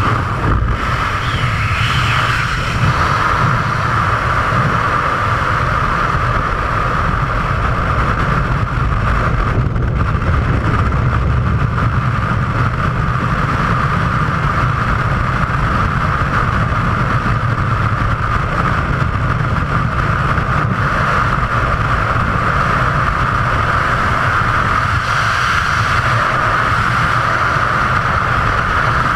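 Freefall wind rushing over a skydiving camera's microphone: a loud, steady rush with a low rumble and a steady high tone running through it.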